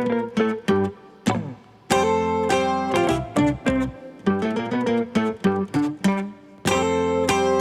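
Background music: plucked acoustic guitar playing a rhythmic pattern of notes and chords, with a sliding note falling in pitch about a second in.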